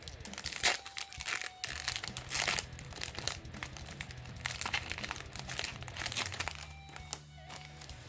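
Foil wrapper of a Pokémon trading-card booster pack crinkling and tearing as it is opened by hand, with irregular rustles and crackles throughout. Background music plays underneath.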